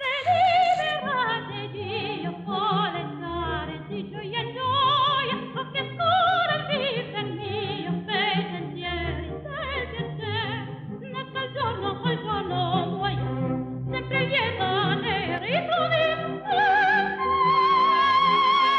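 Music: a solo voice singing in an operatic style with heavy vibrato over a low accompaniment, moving through short notes, then settling on a long held high note near the end.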